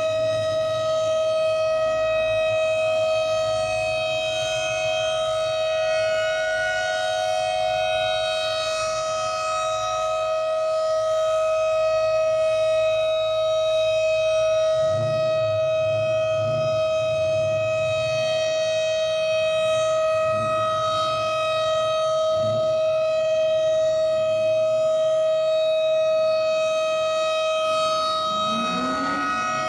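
Federal Signal STH-10 dual-tone rotating warning siren sounding a steady alert tone at full speed, two close pitches held level. Its loudness swells and eases slowly as the head rotates.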